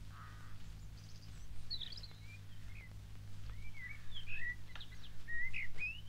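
Forest birds chirping and whistling in short calls that rise and fall, coming more often in the second half, over a low steady hum.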